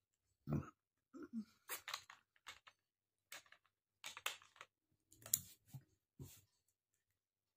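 A short, low burp about half a second in, then a string of small clicks and mouth noises, with a few more short low bursts around five to six seconds in, after a large amount of fizzy cold drink.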